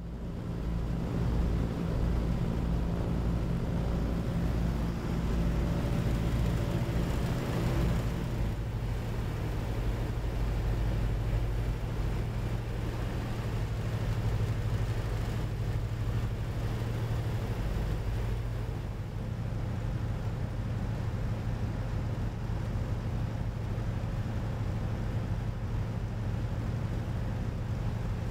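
Radial engines of a 1929 Ford Tri-Motor droning steadily in cruise flight, heard from inside the cabin: a low, even hum under a rushing hiss. The tone shifts slightly about eight seconds in.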